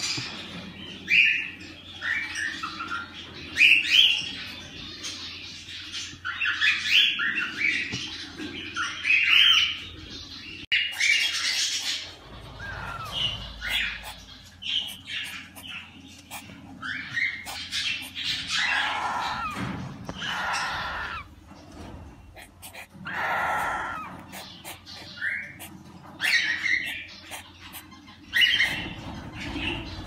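Cockatiel nestlings calling in the nest box: a run of short raspy squawks, with a few longer drawn-out calls after the middle.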